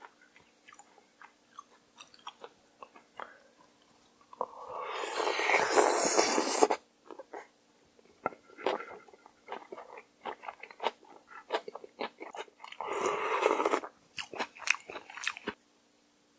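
Close-miked eating of mulhoe, a cold raw-seafood soup with somen noodles: wet chewing with many crunchy clicks. Two long, loud slurps of noodles and broth come about four seconds in and again near the end.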